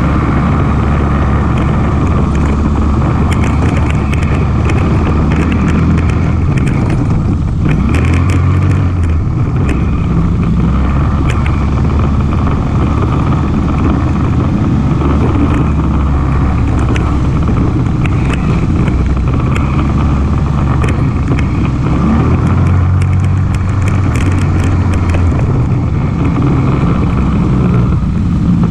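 ATV engine running while riding, its pitch shifting up and down with the throttle, with scattered clicks and rattles over it.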